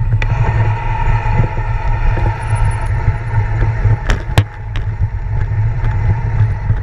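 Wind rumbling on the microphone with steady road noise, broken by a few sharp clicks about four seconds in and near the end.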